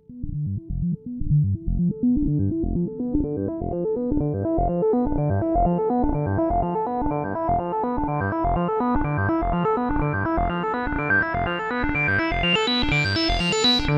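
Moog Subharmonicon playing a fast sequence of short pulsing bass notes, choppy at first, then steady, its tone slowly opening up and growing brighter, with a high fizz near the end.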